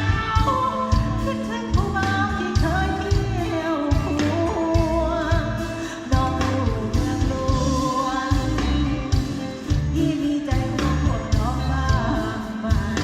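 Band music: a wavering lead melody over a steady drum and bass beat.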